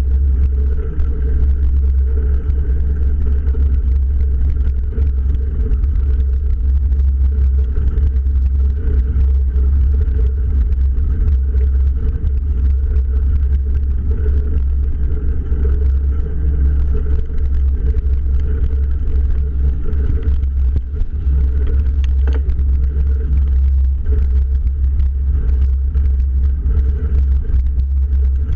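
Heavy, steady wind rumble on the microphone, with tyres rolling over a dirt road, as a bike rides downhill at speed. One sharp tick about three quarters of the way through.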